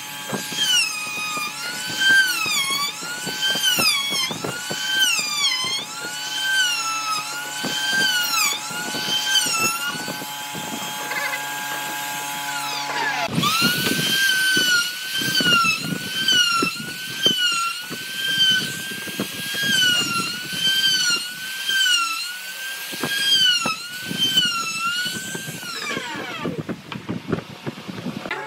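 Compact trim router running at high speed and cutting wood, its high whine dipping in pitch and recovering about once a second as the bit bites. About halfway through it winds down, starts again with a rising whine, cuts steadily, and spins down near the end.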